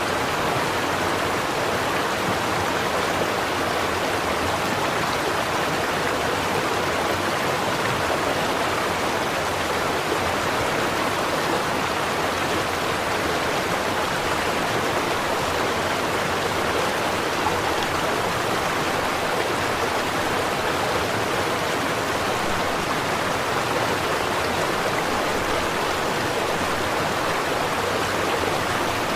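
A stream flowing over rocks: an even, steady rush of water with no change or break.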